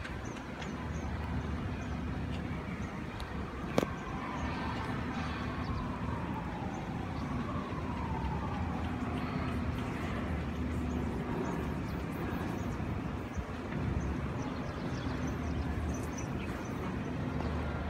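Steady city background noise with the low hum of distant traffic. A single sharp click about four seconds in, and a faint tone slowly falling in pitch over the next several seconds.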